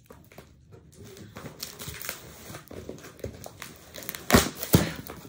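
Taped cardboard shipping box being pulled open by hand, its packing tape and plastic wrap crinkling and tearing. Two loud knocks about half a second apart near the end.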